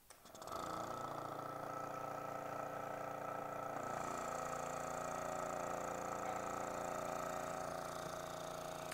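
Vacuum pump switched on, starting about half a second in and then running with a steady hum of several fixed tones that shift slightly about four seconds in. It is pulling vacuum to draw a water sample through a filter into the collecting vessel.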